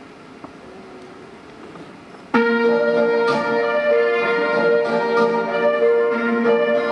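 Quiet hall for about two seconds, then instrumental music cuts in suddenly and loud, with steady held chords and new notes struck over them: the backing track for a song.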